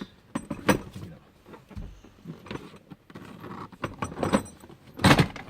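Hard plastic clicks, knocks and rattles from a Hauck Varioguard car seat being worked by hand as its base is pushed forward after its release button is pressed, with a louder clatter about five seconds in.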